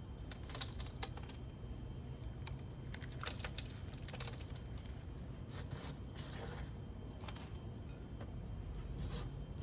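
Faint background hum with scattered light clicks and taps, over a thin steady high-pitched tone.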